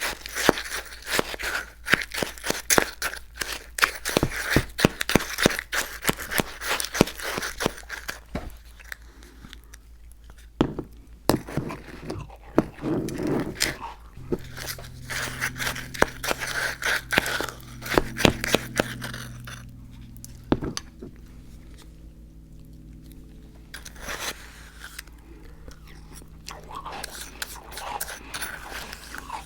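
Close-miked crunchy chewing and biting, dense crackling crunches for about the first nine seconds, then sparser bites. A low steady hum joins for several seconds in the middle.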